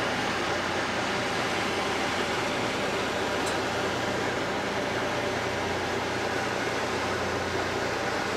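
Steady drone of a cruise boat's engine under way, with a low hum beneath an even rush of water and wind noise.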